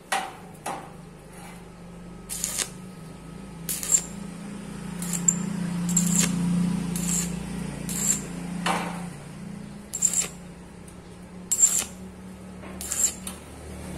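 Stick (arc) welding of the relief cuts on a bent square hollow steel pipe: about a dozen short bursts of arc crackle, roughly one a second, as the welder tacks the cuts one by one, over a steady low hum.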